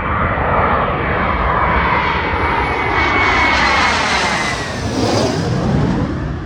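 Fighter jet passing low overhead, its engine a loud roar with a high whine that slowly falls in pitch as it goes by, starting to fade near the end.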